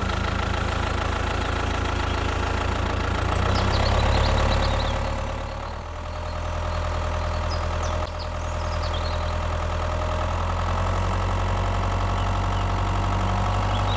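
Tractor engine running steadily at a low idle, with a brief dip in loudness about six seconds in before it settles back to the same steady running.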